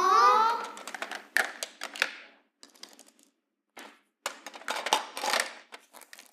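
An irregular run of light clicks and knocks with short bursts of rustle, about two spells of it, as of small objects being handled or set down.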